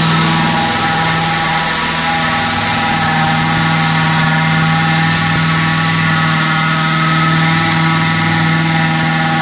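Briggs & Stratton Vanguard V-twin engine of a truck-mounted ULV fogging machine running steadily at a constant speed while the machine sprays insecticide mist.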